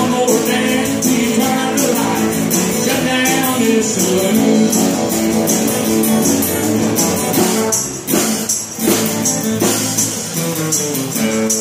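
Live country-rock band playing an instrumental stretch: electric bass, acoustic and electric guitars and drums, with a tambourine jingling on the beat and a little singing early on. The level dips briefly about eight seconds in.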